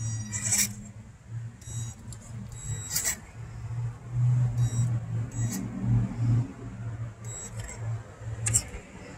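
RC crawler's electric drivetrain whining in short bursts of throttle over a low gear drone as it crawls across a plastic lattice panel. Sharp knocks come about half a second in, about three seconds in and, loudest, near the end, as the wheels drop and bump.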